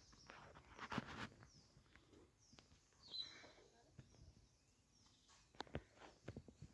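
Near silence broken by faint footsteps and scattered crunching clicks, about a second in and again near the end, with one short high chirp about three seconds in.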